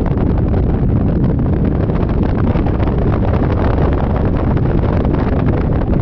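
Wind buffeting the microphone of a riding Yamaha Majesty 400 scooter, a loud, steady low rumble that never lets up.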